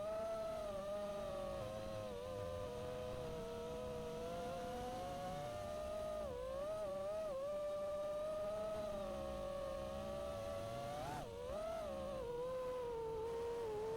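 Five-inch FPV racing quadcopter's brushless motors and props whining steadily, the pitch wavering with throttle and twice dipping and wobbling briefly.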